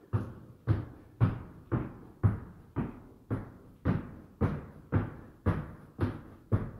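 Sneakers thudding on a rubber gym floor as feet jump out and in from a plank in mountain climbers, an even beat of about two landings a second with a short ring after each.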